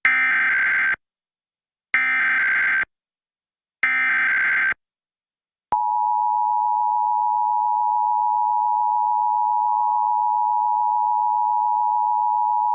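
Emergency Alert System monthly test signal: three short bursts of SAME digital header data, each just under a second, spaced about two seconds apart, then the steady two-tone EAS attention signal starting about six seconds in.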